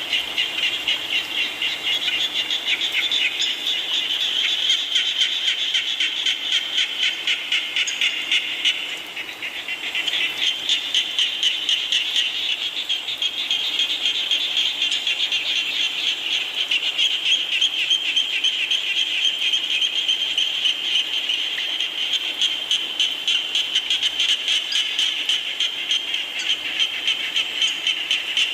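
A dense chorus of frogs calling in fast, repeated pulses, many voices overlapping, with a short lull about nine seconds in.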